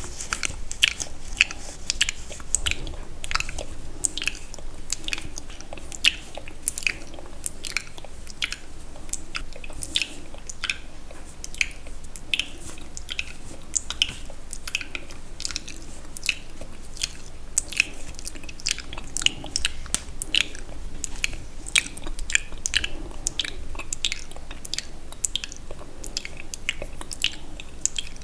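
Close-miked wet, sticky mouth sounds: irregular clicks and smacks of lips and tongue, a few a second.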